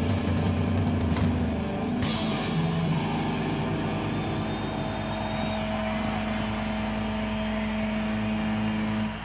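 A rock band plays its closing bars live, with drums and cymbals, and the playing stops about two seconds in. A few held guitar and amplifier tones then ring on over a steady noise and cut off shortly before the end.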